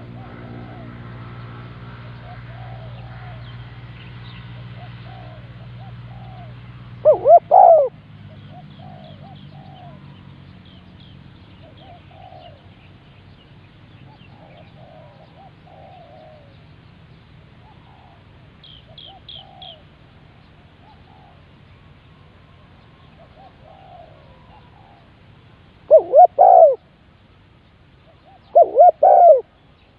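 Spotted doves cooing. One calls loudly close by in short phrases, about a quarter of the way in and twice near the end, while fainter doves coo throughout. A steady low hum stops about a quarter of the way in, and a small bird chirps briefly past the middle.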